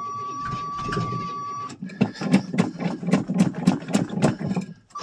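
A steady key-in warning buzzer sounds and cuts off under two seconds in. The starter then cranks the 1985 Chevrolet Suburban's engine in an even chug, about three and a half compression pulses a second, for roughly three seconds, and stops suddenly without the engine catching.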